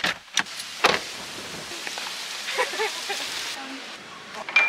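Car door opened from inside: clicks of the interior handle and latch, and a clunk about a second in, then a steady hiss of open air. A sharp click with a short high beep near the end.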